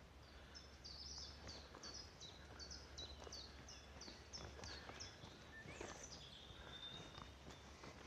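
Faint birdsong in woodland: one bird repeating short high notes about twice a second for about five seconds, followed by a higher falling note and a thin held whistle.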